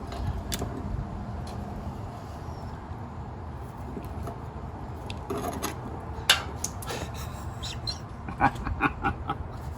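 Small clicks and handling of a hand tool, wire and a small metal connector as an electrical connector is crimped onto a thin wire, with a sharper tick about six seconds in and a run of quick clicks near the end.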